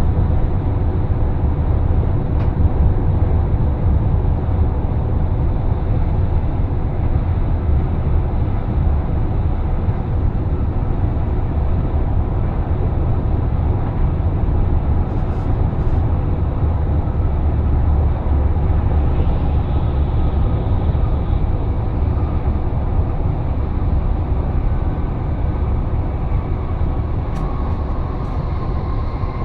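A PKP Intercity ED250 Pendolino running steadily, heard from on board: a continuous low rumble of wheels on rail with a faint steady hum over it.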